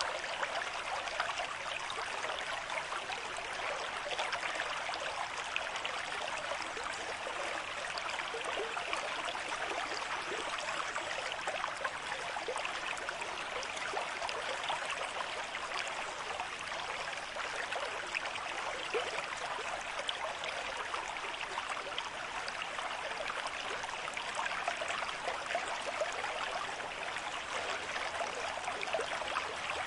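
A river stream at moderate flow, water running and trickling steadily over rocks in an even rush.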